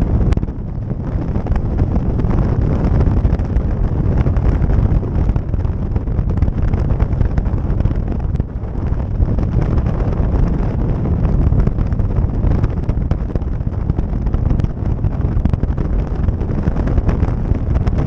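Wind buffeting the microphone of a motorcycle at road speed, a steady low rush with the bike's running noise under it.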